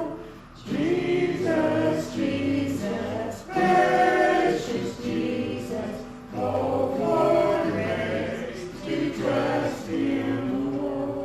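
A choir or congregation singing a hymn in held phrases, with short breaks between lines.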